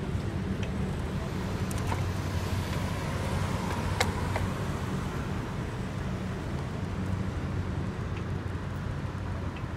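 Street traffic noise: a steady low rumble of vehicles, with one sharp click about four seconds in.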